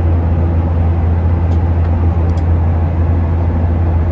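Steady low drone of an airliner's cabin: engine and air-conditioning noise holding an even level, with a couple of faint clicks.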